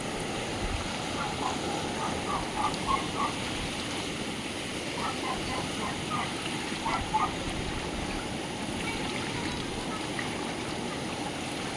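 Frogs calling in short runs of repeated croaks over a steady rush of running water. The frogs go quiet for a few seconds at a time between runs.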